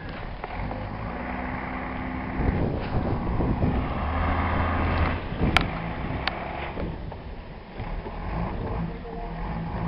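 Snowplow's engine running steadily while it works, louder for a few seconds in the middle, with two sharp clanks near the middle.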